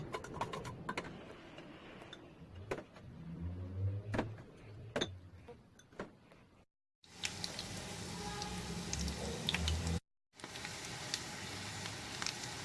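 A utensil clicking and tapping while the tuna mixture is stirred, then tuna patties sizzling steadily as they fry in a pan, with abrupt breaks between the clips.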